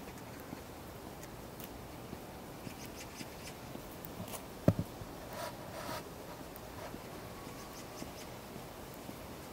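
Footsteps on snow, with scattered faint scrapes and clicks, and one sharp knock about halfway through followed by a brief rustle.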